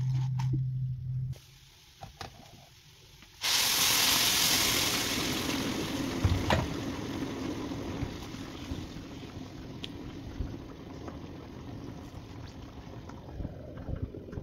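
A steady low hum stops about a second in; a couple of seconds later food goes into a pan of hot oil and starts sizzling, a sudden loud hiss that gradually settles into a steadier frying sizzle with a few pops.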